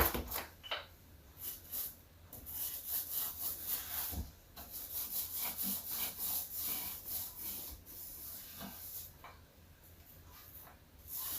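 Paint roller worked back and forth over a plywood cabinet panel, a run of rhythmic rubbing strokes that stops about two seconds before the end.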